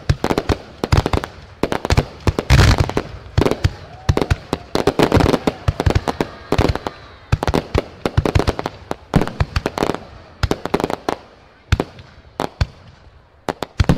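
Fireworks going off: many sharp bangs in rapid, irregular succession, some with a brief crackle or echo after them, thinning out over the last couple of seconds.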